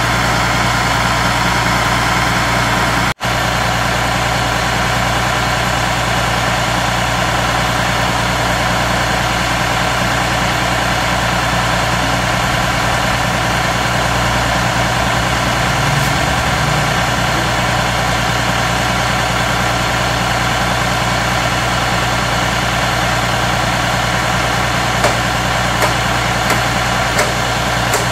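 John Deere 3350 tractor's diesel engine running steadily at constant speed, driving the forage chopper hitched to it. The sound cuts out for an instant about three seconds in, and a few light clicks come near the end.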